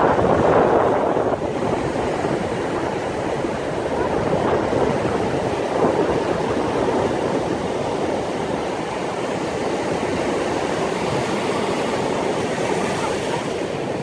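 Sea surf breaking and washing up over a sandy beach: a continuous rushing wash, loudest in the first second or so and swelling gently now and then.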